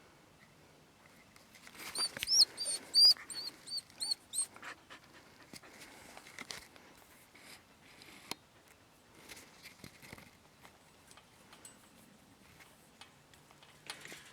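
A dog in her kennel whining: a quick run of about seven short, high-pitched whimpers a couple of seconds in. Then come faint panting and small shuffling sounds. The whines are typical of an impatient dog wanting to be let out.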